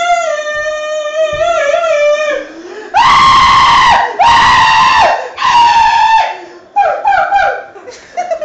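A person's voice making a deliberately annoying noise: a long, high, wavering whine, then three loud screeches of about a second each, then short warbling squeals near the end.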